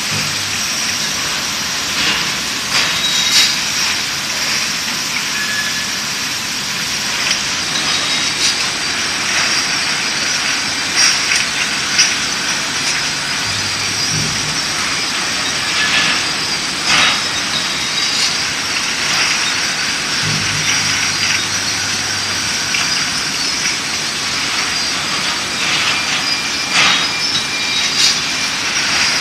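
Automatic glass bottle washer running, with a steady high hiss and dense clinking and clatter of glass bottles jostling against each other as they crowd onto the discharge conveyor; sharper clinks stand out here and there.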